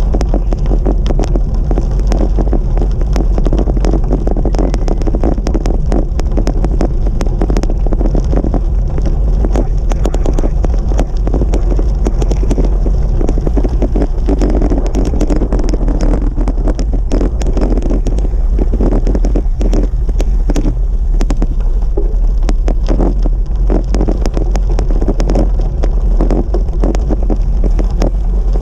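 Heavy wind buffeting on the microphone during a bicycle ride: a constant low rumble with many small clicks and rattles mixed in.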